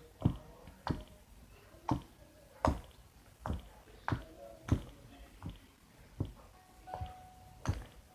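Slime poked again and again with one finger, each poke a short sharp click or pop, about eleven in all at an uneven pace of roughly one every two-thirds of a second.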